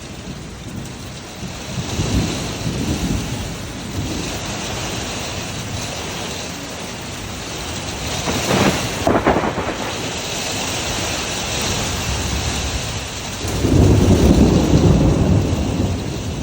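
Heavy hurricane rain falling steadily, with deep rumbling surges swelling about two seconds in, again briefly in the middle, and loudest near the end.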